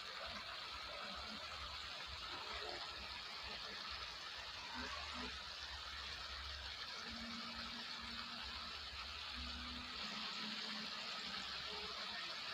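Pork, eggplant and okra in a coconut-milk sauce simmering in a wok, a steady bubbling hiss.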